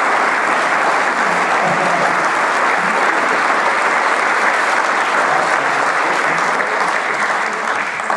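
Audience applauding steadily, a dense sustained wash of many people clapping.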